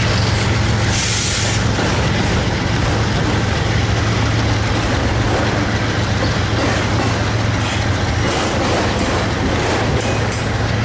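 Freight train rolling past: a steady rumble from the passing cars, with the wheels clicking now and then.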